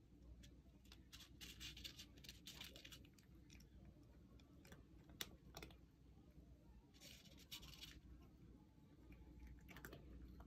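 Faint clicks and scratchy rustles of dry cat kibble and paper as a cat sniffs and paws at the kibble, coming in two short flurries with a few single ticks between.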